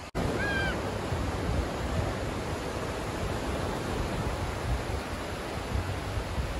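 Sea surf washing on a beach as a steady rushing noise, with wind gusts buffeting the microphone. A short high-pitched call sounds once about half a second in.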